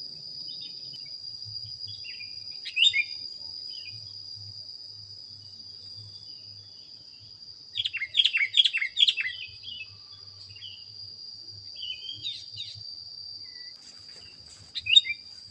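Sooty-headed bulbul (kutilang) singing in short bursts of quick, chirpy notes, the longest and loudest burst about halfway through. Behind it runs a steady high-pitched buzz like a cricket.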